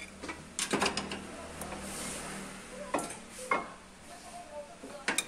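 Brake caliper and hand tools clinking and knocking metal on metal while a brake pad is being changed: a quick cluster of knocks about a second in, then single sharp clinks around three seconds and near the end.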